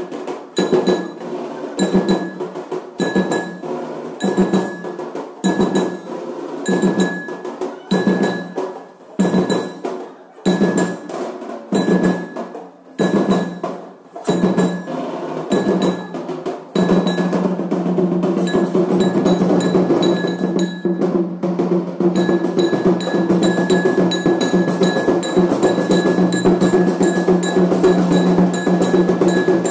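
Traditional festival drums beating a slow, steady rhythm, a little over one stroke a second, with a bright ringing tone on each beat. About halfway through, the playing thickens into continuous, dense drumming.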